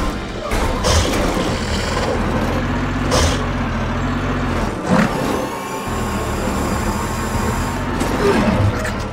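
Cartoon dump truck engine sound effect: a low, steady heavy-engine drone that breaks off for about a second midway and then starts again, with a few sharp knocks.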